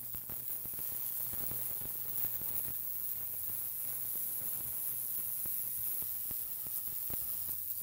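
Branson ultrasonic jewelry cleaner running: a steady low hum with a sizzling hiss from the cleaning bath, and scattered faint clicks.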